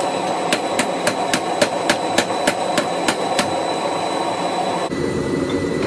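Hand hammer striking a hot railroad spike on the anvil, about four evenly spaced blows a second, stopping about three and a half seconds in, over a steady background noise.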